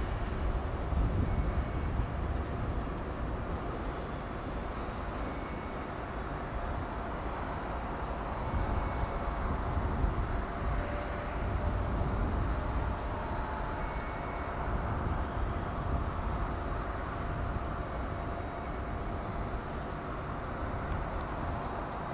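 Steady outdoor harbour and shipyard background noise: a low rumble that rises and falls a little, with a faint steady machinery hum and a few faint short high tones.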